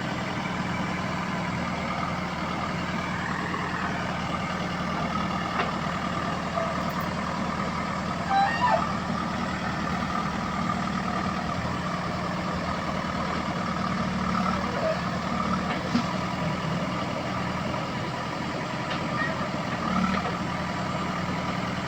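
Heavy diesel engine running steadily at a constant speed, with a few short knocks and a brief squeak.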